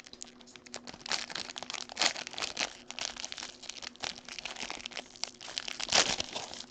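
Trading card pack wrapper crinkling as it is handled and pulled at to tear it open, with a louder rip about two seconds in and another near the end; the pack is stubborn to open.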